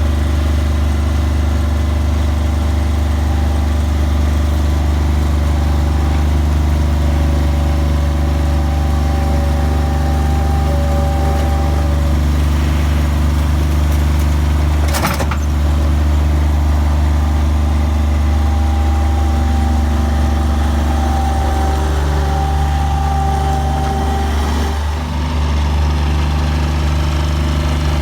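Skid steer loader's engine running steadily while gravel is spread, with a single sharp knock about halfway through and a brief dip in engine note near the end.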